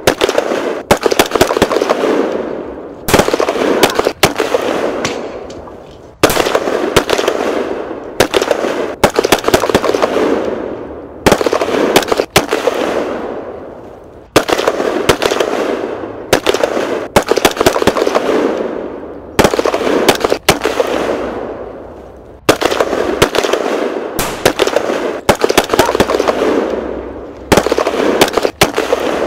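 Battle sounds of gunfire and explosions going off every second or two, each sharp crack trailing off in a long echoing rumble.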